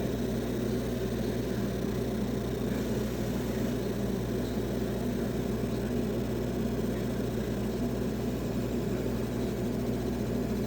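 Laser engraving machine running through an engraving pass, a steady mechanical hum with constant low tones and an even hiss that does not change.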